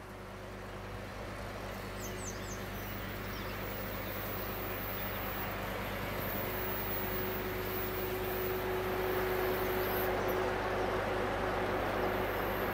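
A distant freight train approaching on the rails, its rumble growing steadily louder with a steady hum. A bird chirps a few times about two seconds in.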